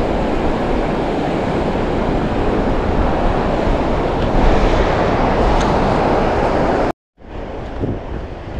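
Strong wind buffeting the microphone over the sound of surf. Just before seven seconds in the sound cuts out for a moment, then wind and surf go on more quietly.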